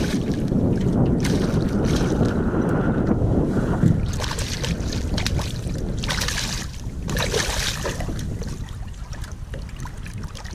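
Wind rumbling on the microphone, then a hooked smallmouth bass thrashing at the surface beside the boat, a run of splashes from about four to eight seconds in.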